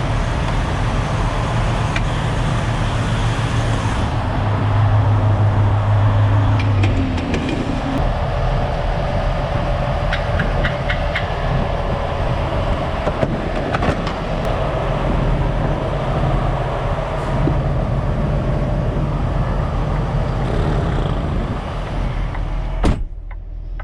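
Heavy diesel truck engine running steadily with a low rumble, a few light clicks over it, and a sharp click near the end.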